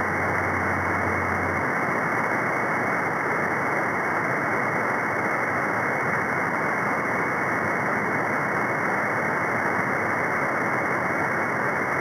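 Steady hiss of band noise from a CB radio receiver on single sideband between transmissions, with no station on the frequency. It is cut off above a fairly low pitch by the receiver's narrow filter. A low hum stops about a second and a half in.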